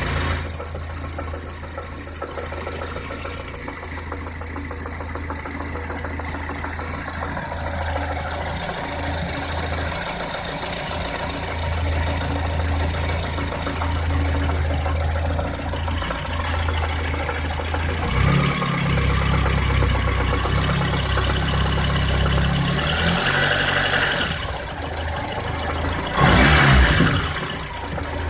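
VAZ-2108 engine idling with a knock that the owner takes for crankshaft knock, revved briefly near the end.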